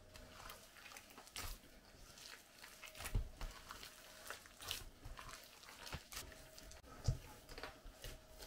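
Hand kneading soft, sticky yeast dough in a stainless steel bowl: faint, irregular squishing and tearing of the dough, with a few sharp soft knocks against the bowl.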